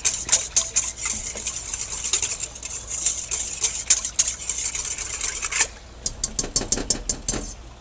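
Wire whisk stirring yeast into water in a stainless steel mixing bowl: a rapid run of metallic clicks and swishes as the wires hit the bowl. About five and a half seconds in it turns quieter, with a few lighter taps.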